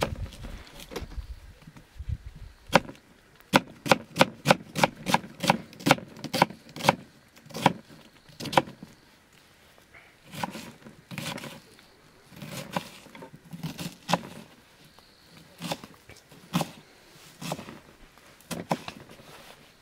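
Knife chopping vegetables: a quick run of sharp knocks, about three a second, then slower single cuts about once a second.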